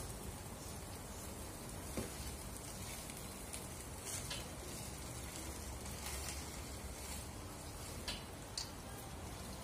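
Chicken biryani rice and masala sizzling softly in a wok as it is stirred and folded with a plastic spoon, with a few sharp scrapes and taps of the spoon against the pan.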